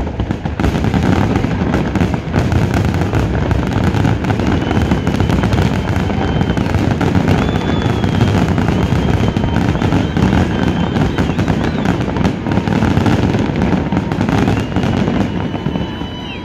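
Fireworks grand finale: a dense barrage of aerial shells bursting and crackling without a break. Several long high whistles sound over the barrage in the second half.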